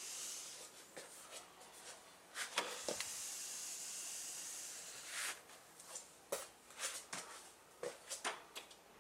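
A wood-framed sliding window sliding along its track for about three seconds, with a knock as it starts and another as it stops. A few light knocks and taps follow.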